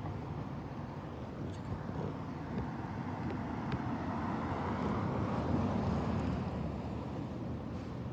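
A car driving past, its tyre and engine noise swelling as it approaches, loudest about five and a half seconds in, then fading away.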